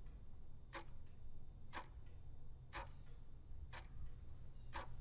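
Clock ticking steadily, about once a second, five even ticks, over a low steady hum.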